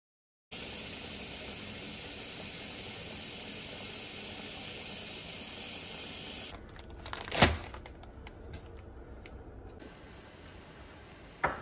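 Water pouring in a steady stream from a tap into a pot, with an even hiss. About six and a half seconds in it gives way to the quieter hiss of water boiling in a wok, broken by a single sharp knock a second later and a few light clicks.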